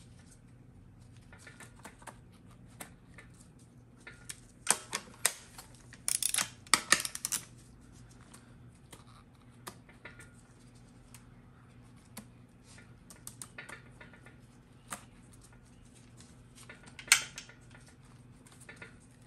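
Irregular light clicks and taps of a TH350 transmission's steel valve-body spacer plate and gasket being shifted and pressed into alignment by a gloved hand. A cluster of sharper clicks comes about five to seven seconds in, and another near the end, over a faint steady hum.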